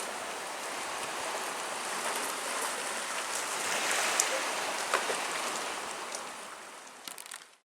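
Surf from a rough, wind-stirred sea washing onto the beach: a steady hiss with a few faint splashes and clicks, fading out near the end.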